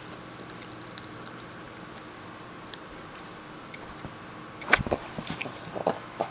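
Boston terrier puppy gnawing a hard nylon chew bone: faint scattered clicks of teeth on the bone, then a run of louder sharp clicks and knocks near the end.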